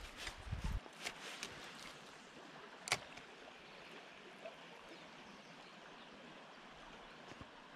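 River current flowing steadily, with a few low bumps and clicks in the first second or so and one sharp click about three seconds in.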